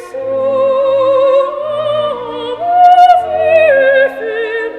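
Operatic singing with wide vibrato over orchestral accompaniment. The singer holds long notes and climbs to a higher, louder note about halfway through, then drops back near the end.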